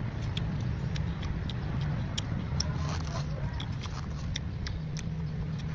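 Steady rumble of road traffic, with many small sharp clicks and ticks scattered over it at about two or three a second.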